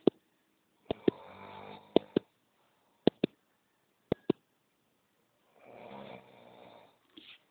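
Snoring while asleep: two long snoring breaths a few seconds apart. Sharp short clicks, mostly in pairs, come between and during them.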